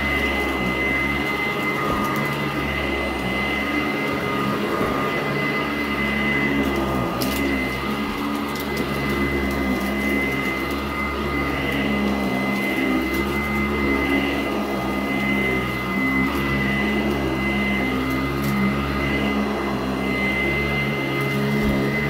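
Sanitaire SC886 commercial upright vacuum running steadily with a constant high whine as it is pushed over carpet, with scattered sharp clicks of grit and debris being sucked up.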